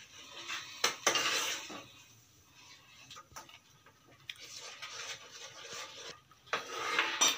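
Metal ladle stirring a thick flour-and-milk white sauce in a nonstick frying pan, scraping around the pan, with a sharp clink about a second in and another near the end. The milk-and-roux sauce is being stirred briskly to keep lumps from forming.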